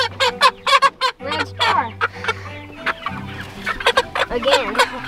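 Pullets clucking and squawking in many short, rapid calls as they are handled into a crate.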